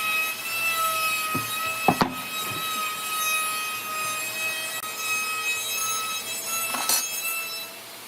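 A woodworking power tool running with a steady high whine over the noise of wood being cut. There are sharp knocks about two seconds in and again near the end.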